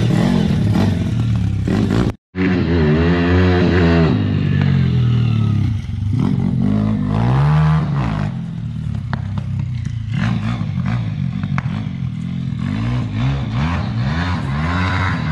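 SSR 160 pit bike's single-cylinder four-stroke engine being ridden and revved, its pitch rising and falling over and over, with a very short break about two seconds in. It is running lean, which the owner puts down to air being sucked past a snapped carburetor bolt.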